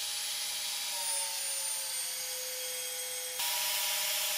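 Festool CXS 18 compact cordless drill driving a 12-inch wood screw into a thick block of timber: a steady motor whine whose pitch sags slightly, then jumps back up and gets a little louder about three and a half seconds in. The drill drives the long screw without stalling.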